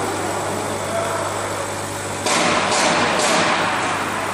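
Steady hum and fan-like rush of a laser cutting machine's fans and motors running. A louder rush of noise comes in about two seconds in and lasts about a second and a half.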